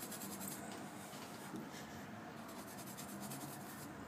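Charcoal scratching across a toned canvas in a run of short, light strokes.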